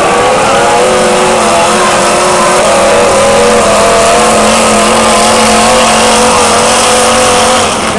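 Engines of several dirt-track race cars running loud at once, their notes wavering up and down together. The sound eases off near the end.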